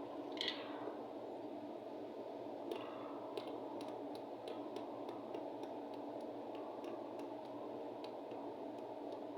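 Light, irregular clicks and ticks of small tools and parts being handled on a repair bench, over a steady background noise.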